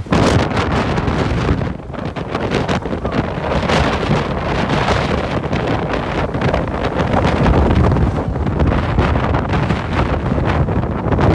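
Strong gusting wind buffeting the microphone: loud, rumbling low noise that swells and eases with the gusts.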